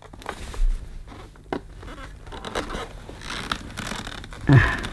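Handling noise from taking apart an Electrolux 170 vacuum cleaner's casing: small clicks and scrapes as its hood is worked at, with one sharp click about a second and a half in.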